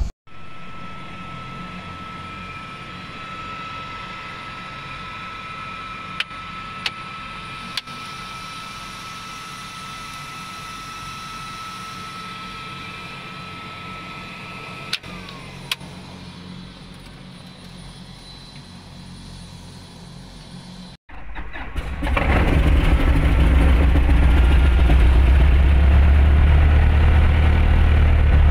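Van's RV-7 cockpit, quiet at first with a steady high whine and a few sharp clicks, then the single piston engine starts about 22 seconds in and settles into a steady low idle around 1140 rpm.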